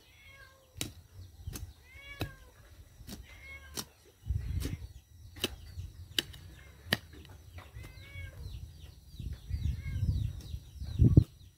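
A long-handled metal spade stabbing and prying into soil: dull thuds, scrapes and sharp ticks, the heaviest thud near the end. Over it, an animal gives several short rising-and-falling calls.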